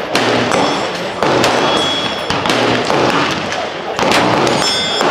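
Gunshots on a busy shooting range: several sharp reports about a second or more apart, over a steady background of noise and indistinct voices.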